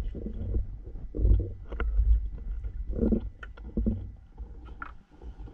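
Gill net being hauled in over the side of a small boat: irregular knocks, rubbing and clicks of the wet net and floats against the hull, over low rumbling thumps.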